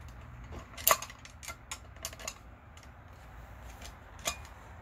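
Scattered clicks and light knocks of plastic and metal parts being handled as an LED ring light is fitted onto its stand, the loudest about a second in.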